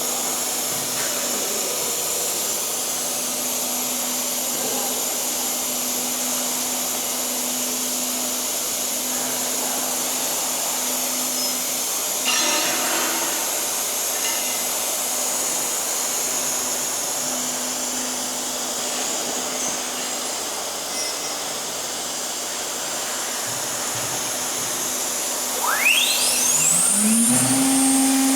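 CNC machining center with an HSD spindle running with a steady whine and hiss, and a brief burst of noise about twelve seconds in. Near the end the spindle speeds up: a whine rising steeply in pitch, then holding at a higher, louder tone.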